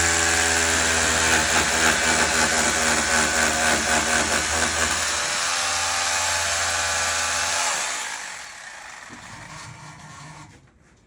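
Electric drill running steadily, then switched off about eight seconds in, its sound dying away over a couple of seconds.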